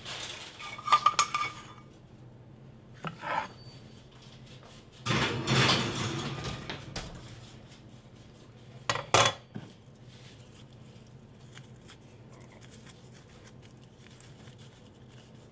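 Kitchen handling sounds: short clinks and knocks of dishes and utensils about a second in and near three seconds, a longer scraping rustle about five seconds in, and a pair of sharp knocks near nine seconds.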